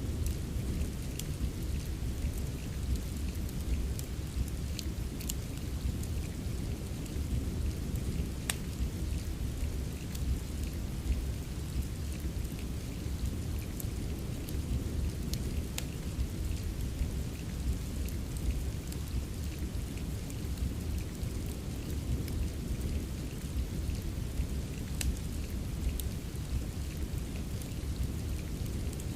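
Steady rain with a deep, even low rumble, mixed with a wood fire crackling: scattered sharp pops at irregular intervals over the rain.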